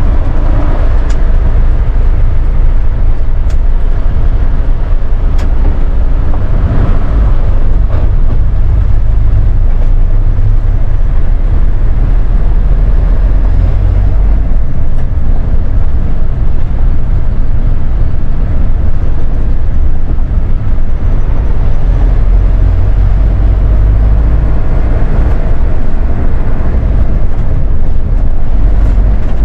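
Mitsubishi Fuso Rosa minibus under way, heard inside the driver's cab: a loud, steady low rumble of engine and road noise, with a few faint clicks.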